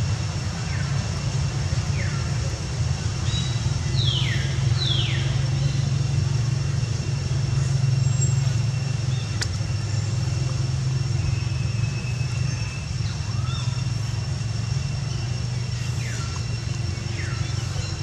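A steady low motor hum, with pairs of short whistled calls falling in pitch a few times over it and a constant thin high tone in the background.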